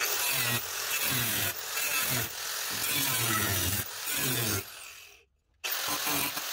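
Handheld power tool cutting into the truck cab's sheet metal, running in uneven surges. It stops about five seconds in and starts again half a second later.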